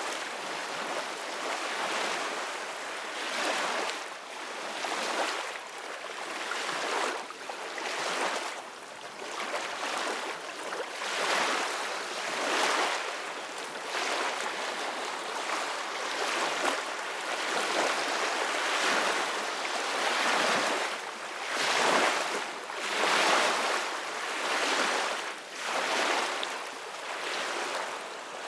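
Ocean waves washing in, a steady hiss of surf that swells and fades every couple of seconds.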